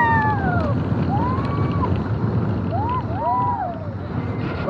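Slinky Dog Dash steel roller coaster train running along its track, a steady rumble mixed with wind on the microphone, while riders let out several high squeals that rise and fall in pitch, the loudest right at the start.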